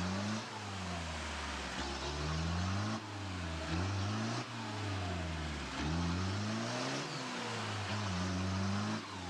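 Off-road 4x4's engine revving again and again, the revs rising and falling about every second or two.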